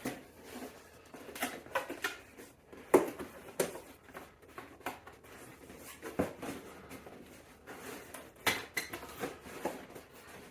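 Irregular light metal clinks and knocks from bike parts and tools being handled during e-bike assembly, the loudest about three seconds in and again near the end.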